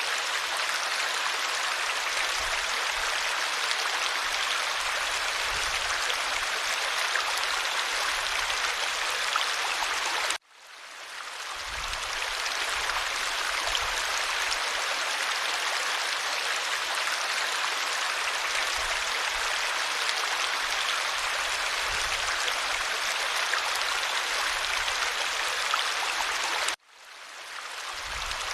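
Clear stream water rushing and babbling steadily. It cuts out suddenly about ten seconds in and again near the end, each time fading back in over a second or two.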